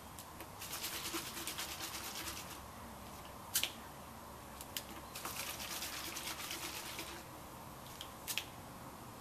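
Liquid sloshing inside a plastic carbonator bottle shaken hard in two bouts of about two seconds each, with a sharp click from the cap's lever between the bouts and another near the end. The shaking mixes the drink with CO2 from the cap's activator reaction to carbonate it.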